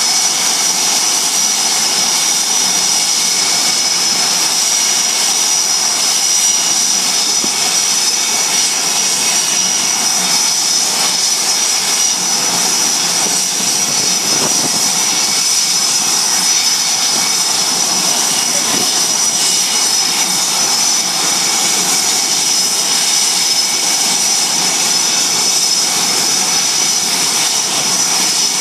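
Blue Angels F/A-18 Hornet jet engines running at idle on the ramp: a steady, high whine over a continuous rush, with no change in pitch.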